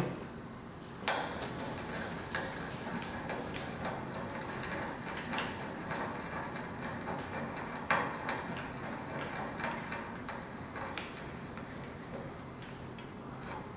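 Traditional French hand brace boring into a wooden board, the twist bit cutting wood as the brace is cranked round, with irregular clicks and creaks throughout. A sharp knock comes about a second in and another about eight seconds in, and the cutting eases off near the end.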